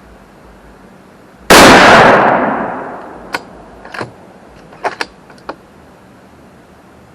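A single rifle shot from a Howa 1500 bolt-action in 6.5 Creedmoor, with a report that rings out and dies away over about a second and a half. It is followed by a handful of short sharp clicks, the bolt being worked to eject the spent case.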